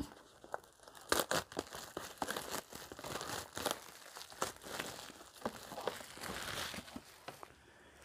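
Cellophane shrink-wrap being torn and pulled off a cardboard knife box, crinkling in irregular crackles, the sharpest just after a second in.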